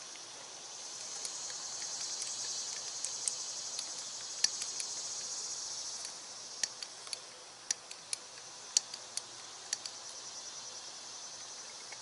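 Hand-pumped hydraulic crimper being worked to press a lug onto a battery cable: irregular sharp clicks from the pump handle and ram as the die closes. Under the clicks runs a steady high hiss that swells and then fades in the first half.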